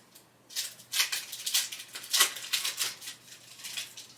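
Trading cards being handled: a run of short, irregular rustling and sliding scrapes, about a dozen over the few seconds, the loudest a little after two seconds in.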